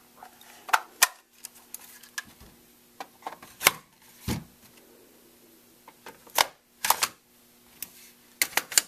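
Polymer and metal parts of an FN PS90 clicking and knocking together as the carbine is reassembled: scattered sharp clicks and snaps a second or two apart, a duller knock about four seconds in, and a quick run of clicks near the end.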